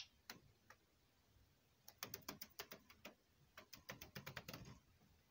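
Faint, quick tapping clicks from a budgerigar moving about, about half a dozen a second, starting about two seconds in and stopping near the end.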